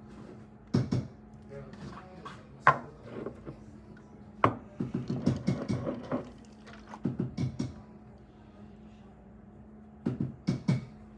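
Café counter handling sounds: a few sharp knocks and clatters from cups and a plastic milk jug being handled, over a steady low hum, with some indistinct voices in the middle.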